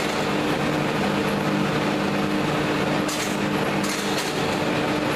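Clay-brick extruder running, pushing the column of clay out through its die with a steady mechanical hum of several low tones under a broad machine noise. There are brief hissy patches about three and four seconds in.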